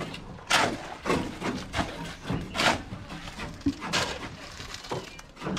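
Shovels scraping and turning a hand-mixed batch of concrete and gravel on the ground, a rough scrape every second or so.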